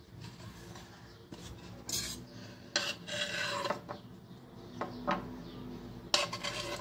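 Kitchenware clinking and scraping: a utensil knocks against a container several times, with short scrapes between, while honey is being added to the onion.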